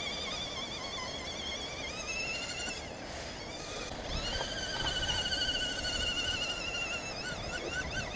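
Electric motor and gearbox of a radio-controlled scale crawler truck whining, the pitch wavering up and down as the throttle is worked, with quick short blips near the end. A low rumble rises from about four seconds in.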